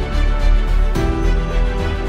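Background music with a steady beat; the chord changes about a second in.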